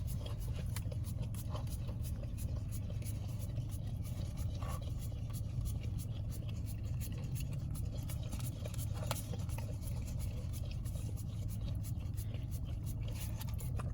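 A puppy licking and scraping at a pup cup, making many small quick clicks and scrapes over a steady low rumble of a car.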